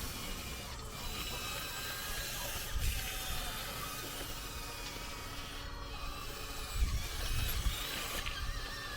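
Hydraulic pump of a 1:14 scale RC excavator whining steadily, its pitch shifting as the arm and bucket take load. Low thuds come near the middle and again toward the end.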